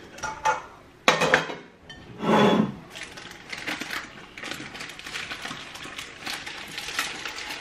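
Crockery handling as a cake on baking paper is moved onto a ceramic cake plate: a sharp knock about a second in, a scrape a second later, then light rustling of the paper and small clinks against the plate.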